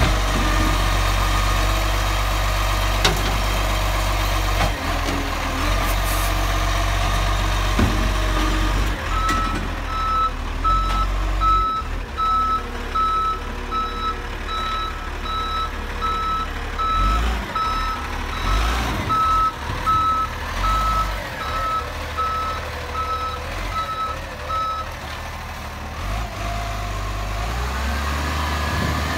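Side-loader garbage truck's diesel engine running, with steady whining tones from the bin-lifting hydraulics. About nine seconds in, its reversing alarm starts a steady series of evenly spaced single-pitch beeps that lasts some fifteen seconds. Near the end the engine rises in pitch as the truck pulls away.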